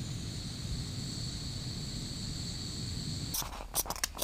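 Small camping gas stove burner running with a steady hiss. About three seconds in it gives way to a spoon scraping and clinking in a metal pot as oats are stirred.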